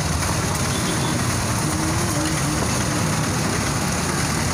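Steady low rumble with an even hiss over it, the background din of a roadside egg stall: the gas burner under a large iron tawa of scrambling eggs, with road traffic behind.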